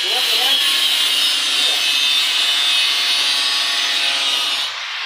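Power saw cutting through wood: a steady, loud, high rasp, easing off slightly near the end.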